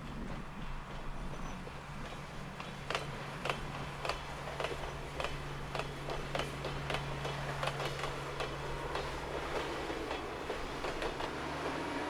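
Diesel train running with a steady low engine hum. From about three seconds in, for several seconds, there is a run of sharp wheel clicks at about two a second as it rolls slowly over rail joints.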